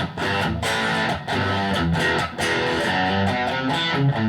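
Single-coil electric guitar played through a Blackstar ID:Core 40 combo amp. Chords are strummed and left to ring, with a fresh strum about every second.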